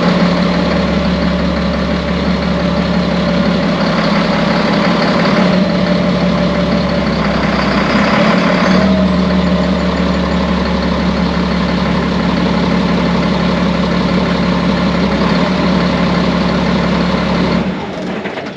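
Turbocharged engine running steadily, with its exhaust elbows rusted through with holes, then cut off near the end.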